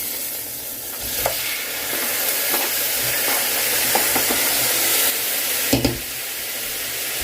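Seasoned chicken pieces sizzling in a pan over high heat while being stirred, with a steady hiss and a few knocks of the utensil against the pan.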